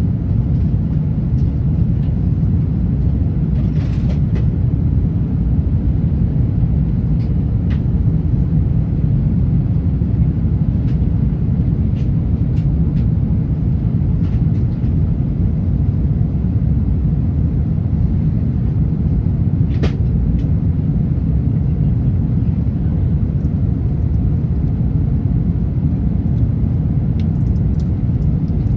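Steady low rumble of an Airbus A380 in flight, heard from inside the cabin: its Rolls-Royce Trent 900 engines and airflow, with a few faint clicks.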